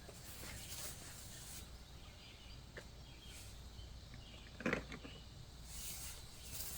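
Faint outdoor background noise with a few light clicks and a short clatter about two thirds of the way in.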